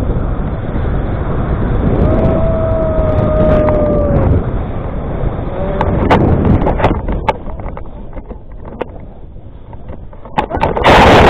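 Wind buffeting hard on an action camera's microphone during low tandem paraglider flight, with a steady held tone lasting about two seconds early on. The wind then eases into scattered clicks and knocks, and near the end a sudden loud, rough rush of noise comes as the glider comes down into the grass.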